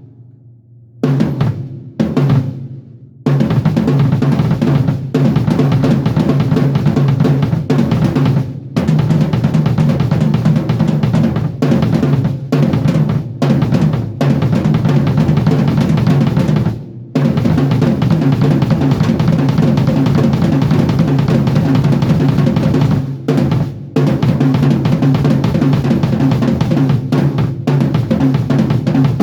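Drum kit warm-up: a few separate strokes, then fast continuous runs across the drums with bass drum, snare and cymbals, broken by short pauses a few times.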